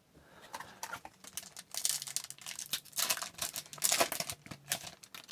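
Crinkling and tearing of a hockey card pack's foil wrapper, with irregular rustles and clicks, loudest about two and four seconds in.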